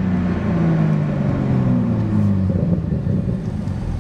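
Toyota A90 Supra's engine and aftermarket Made Motorsports exhaust heard from inside the cabin while driving. Its pitch slides down over the first couple of seconds as the revs drop, then it runs low and steady.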